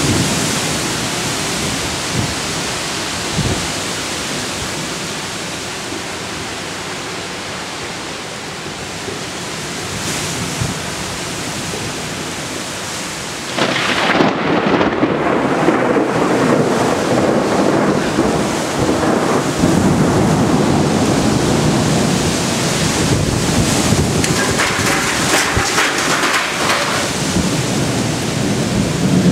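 Thunderstorm: steady heavy rain and wind. About halfway through the noise rises sharply into a long rolling rumble of thunder that lasts to the end.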